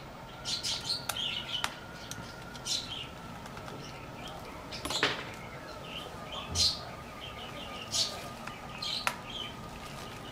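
A bird chirping in short, high calls every second or so. A couple of sharp clicks and a faint steady high whine run under it.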